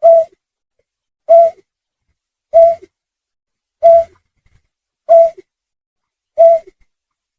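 Recorded snipe lure call: a short, low hooting note repeated six times at an even pace, about one every 1.3 seconds, each with a faint lower note trailing it.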